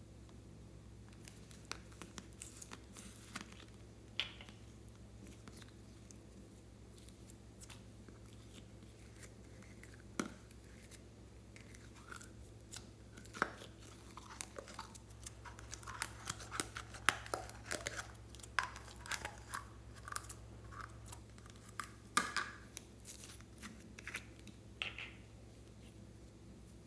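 Slime being squished and stretched by hand, making sticky clicks and crackles. The clicks are sparse at first, then become a dense run of pops and crackles about halfway in.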